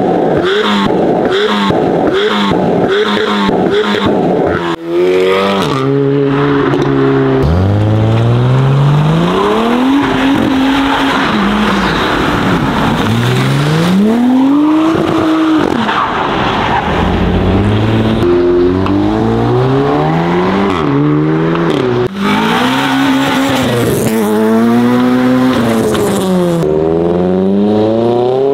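A car's engine held against the rev limiter, its exhaust popping in a quick regular rhythm about two or three times a second while shooting flames. From about five seconds in, engines revving hard, rising and falling in pitch again and again.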